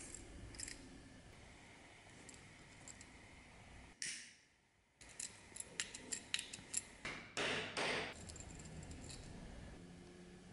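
Leather strap being hand-stitched and fitted: faint handling sounds, then past the middle a quick run of small sharp metallic clicks from the strap's metal buckle fitting, followed by two short rasps of thread drawn through the leather.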